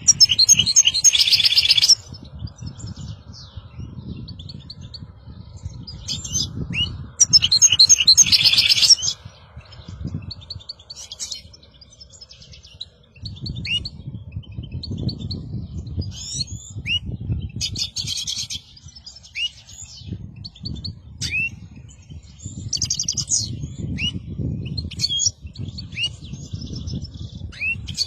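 European goldfinch song: bursts of rapid, high twittering trills, loudest in the first two seconds and again around eight seconds in, with short rising chirps between. A low rumble comes and goes underneath.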